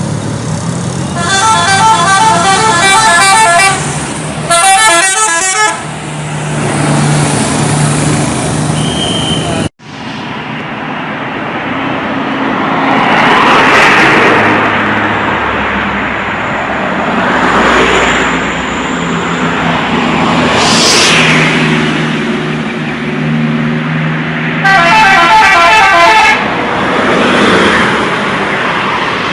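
Indonesian bus 'telolet' multi-tone horns playing quick melodic tunes, in three bursts: about a second in, around five seconds in, and near the end. Between them run bus engine and street noise, broken off suddenly about ten seconds in.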